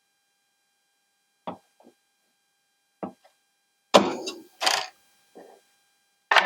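A few short knocks and clatters of cassette deck parts being handled and set down on the workbench, the two loudest a little under a second apart, about four seconds in.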